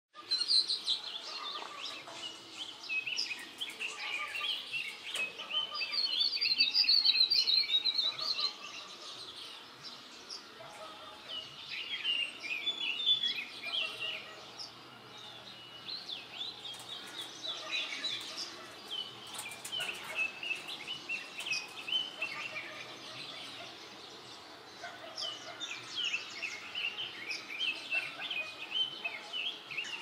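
Wild birds chirping and calling in a busy, overlapping run of short high notes that goes on throughout, loudest and densest around six to eight seconds in.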